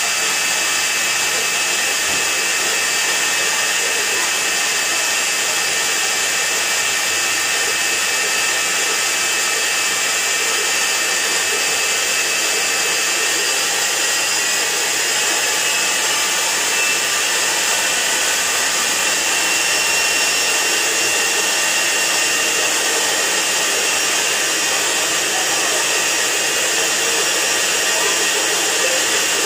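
Electrolux EWF984 front-loading washing machine's drive motor running steadily at speed, a loud even whir with a strong high hiss and a faint steady whine. The hiss is carbon-brush noise, which the repairer expects to ease once the brushes have run in for a while.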